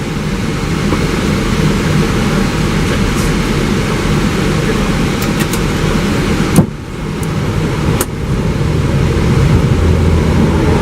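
Steady rush of airflow and engine noise inside an Airbus A320 cockpit during its descent on approach. A sharp click comes about two-thirds of the way through and another about a second and a half later.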